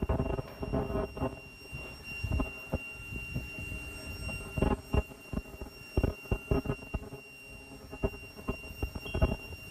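Non-woven fabric slitting machine running: a steady high electrical whine with scattered light clicks and knocks.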